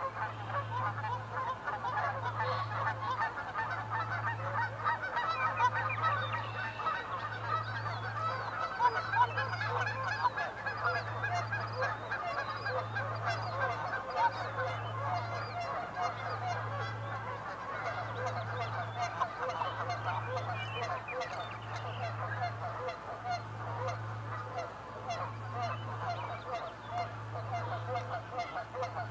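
A dense, unbroken outdoor chorus of many short honk-like calls from a flock of birds, with a low hum pulsing on and off about every second and a half beneath it.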